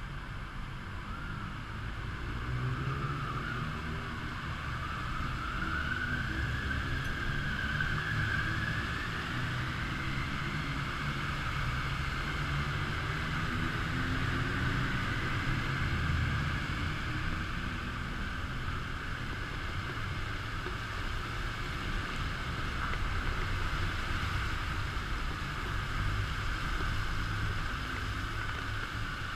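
Motorcycle engine running as the bike pulls away and rides along a rain-wet road. The engine note climbs over the first several seconds, then runs steadily under a constant hiss of wind and wet tyres.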